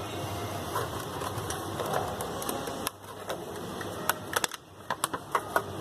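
Sharp plastic clicks and taps from a UV nail dryer being handled, over a steady hum. The clicks are sparse at first and come thick in the last three seconds, and the hum dips briefly twice.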